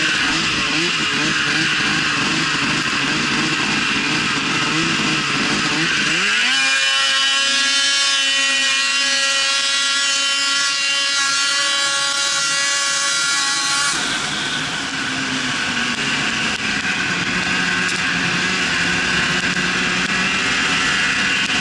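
Snowmobile engine heard from on board while riding. About six seconds in it revs up in a rising whine and holds a high, steady pitch for about seven seconds, then eases back to a lower, rougher running sound.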